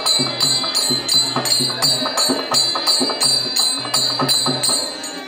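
Drum and small hand cymbals playing a steady, fast rhythm, the cymbals clashing about four times a second over the drum beats: the accompaniment of a Tamil village street-drama troupe.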